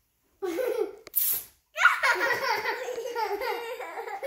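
A short hiss of a Silly String aerosol can spraying about a second in, followed by a young child laughing.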